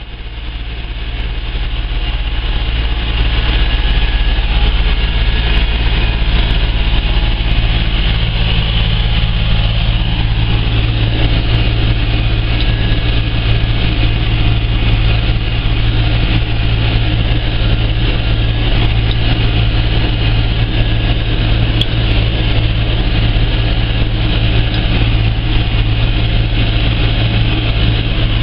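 Massey Ferguson 4245 tractor's four-cylinder diesel engine running steadily under load while pulling a spike-tooth harrow and leveller, heard from inside the cab. The sound fades in over the first few seconds.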